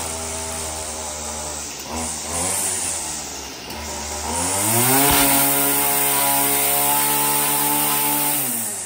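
String trimmer engine running as its line cuts grass along a concrete edge. It runs at lower speed at first, revs up about halfway through and holds high speed, then eases off near the end. There is one sharp knock around the time it revs up.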